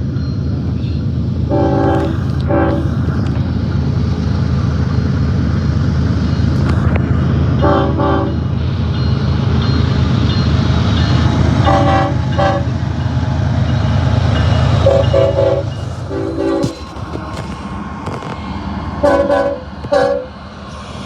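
Nathan AirChime five-chime train horn (K5HL or K5LLA) sounding several notes at once in short blasts, mostly in pairs of a longer and a shorter toot, about every four seconds. Underneath is the steady rumble of the moving train, which drops away about sixteen seconds in.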